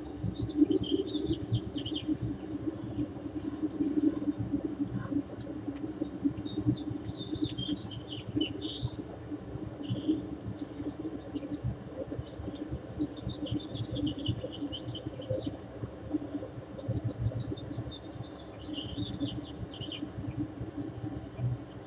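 Birds singing, with chirps and a short, quick trill phrase that comes back every six or seven seconds, over a steady low background noise.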